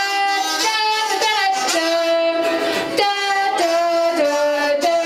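Kazoo playing the solo melody in long held notes over strummed ukuleles.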